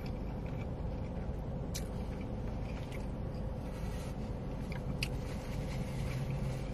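Chewing a bite of a large loaded cheese fry burger, a few faint sharp mouth clicks over a steady low hum.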